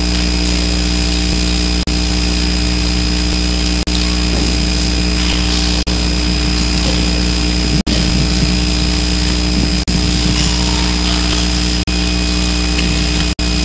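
Loud steady electrical hum and hiss in the audio, cutting out for an instant about every two seconds.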